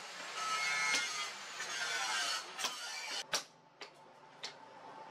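A steady rushing hiss from the coal forge fire, then hammer blows on red-hot steel on the anvil: four sharp strikes about two-thirds of a second apart, starting a little past halfway.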